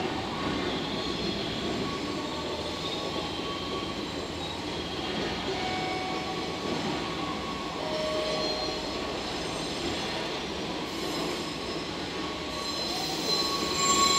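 Two JR West diesel railcars, a KiHa 187 and a KiHa 126, pulling away side by side over the station tracks: a steady rumble of engines and wheels with short squeals now and then. The sound grows a little louder near the end.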